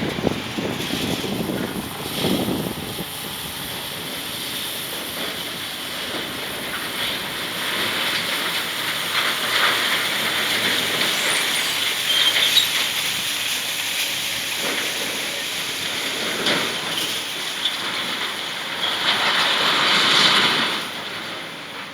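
Excavator crushing and shifting gas station awning demolition debris: repeated crunching and scraping of the wreckage over the machine's running engine, swelling louder near the end before easing off.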